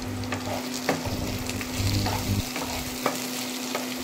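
Chopped capsicum, tomato, chilli and onion sizzling in oil in a granite-coated nonstick pan, with a spatula stirring and scraping the pan several times, over a steady low hum.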